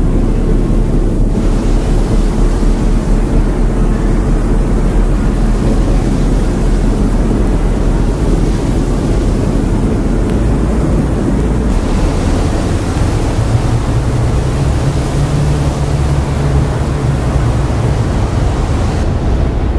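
Steady, loud wash of effects-processed noise like surf or wind over a low droning hum, a sound-of-space drone. The hiss brightens about a second in, and a deeper hum swells from about the middle to near the end.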